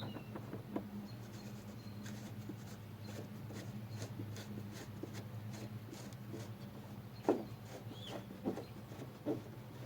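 Scattered light clicks and taps of metal parts being handled and fitted as a truck bed extender's locking piece is put back in place, with one sharper knock about seven seconds in, over a steady low hum.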